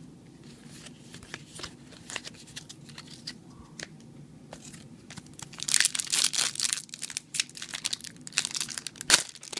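A few light clicks of cards being handled, then from about halfway the foil wrapper of a Yu-Gi-Oh booster pack crinkling and tearing as it is ripped open.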